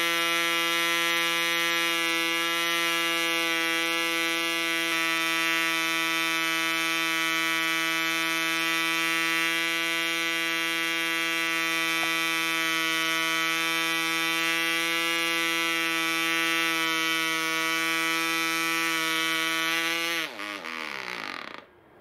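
PAW 1.49 cc two-stroke model diesel engine turning an 8x4 propeller, running flat out as a steady buzz, then winding down with falling pitch and stopping about 20 seconds in.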